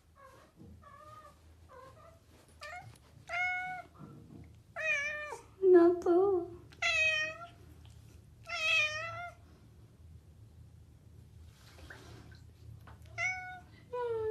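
A domestic cat meowing repeatedly: short chirping meows at first, growing longer and louder toward the middle, with a lower, loudest call about six seconds in, then a pause and two more meows near the end.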